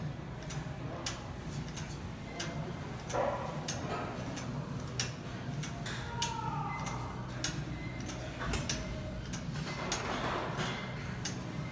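Gym equipment clicking and clinking irregularly over a steady low hum, with a short falling squeak about six seconds in.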